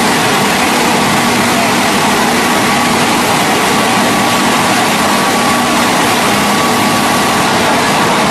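Hydraulic single-spindle veneer peeling lathe running steadily while it peels face veneer off a turning log: constant loud machine noise with a faint steady hum.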